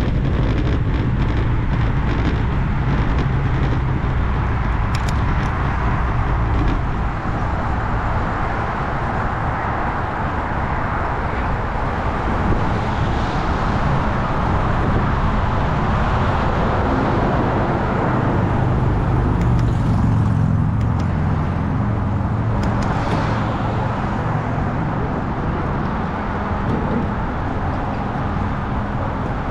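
Wind buffeting the microphone and the rolling tyre noise of a Specialized Roubaix SL2 road bike, first over brick pavers and then over a wooden bridge deck, with a steady traffic hum underneath.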